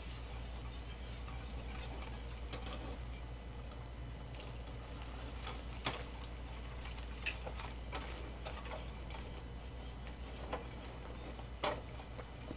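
Wire whisk stirring gravy mix and water in a stainless steel pan, with faint, irregular light clicks and scrapes as the wires knock against the metal.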